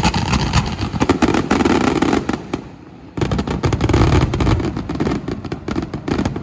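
Fireworks finale barrage: a rapid, continuous run of shell bursts and crackling with a deep rumble, dropping off briefly a little past halfway before a second dense barrage.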